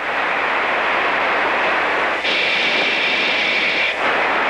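Steady rushing noise of an F-15's cockpit intercom and radio. A high electronic tone comes in about two seconds in and holds for nearly two seconds.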